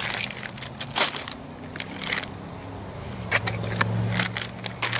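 MRE food packaging crinkling and crackling as it is handled, in two runs of sharp crackles with a quieter gap in the middle.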